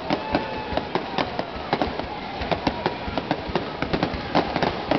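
Aerial fireworks display: a dense, unbroken barrage of sharp bangs and crackling bursts, several a second, over a constant rumble of crackle.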